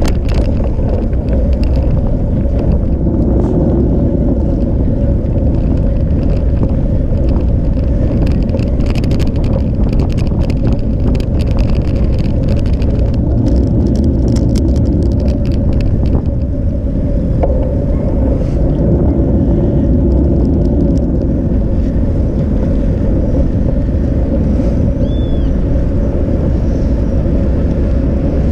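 Bicycle riding along a path, heard from an action camera on board: steady rumble of tyres and wind on the microphone with a constant hum, and a stretch of rattling clicks from about eight to fifteen seconds in.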